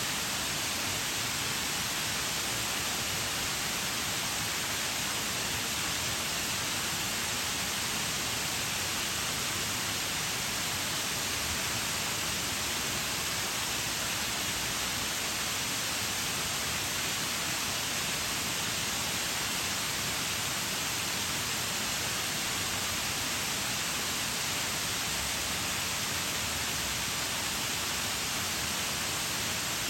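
Waterfall: water falling and splashing in a steady, even rush with no change.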